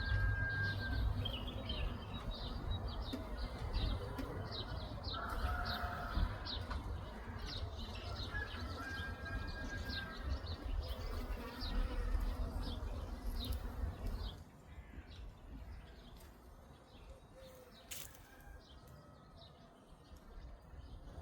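Small birds singing, with rapid repeated high chirps and a few clear held whistles, over bees buzzing and a low rumble that drops away about two-thirds of the way through.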